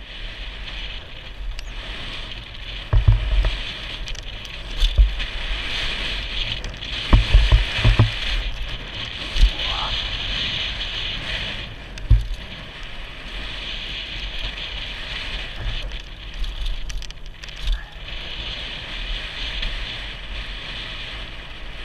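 Mountain bike riding fast down a dirt trail, heard from a helmet camera: a steady high rush of tyre and wind noise, broken by several heavy thumps as the bike hits bumps and jump landings, the biggest around three seconds in and again around seven to eight seconds in.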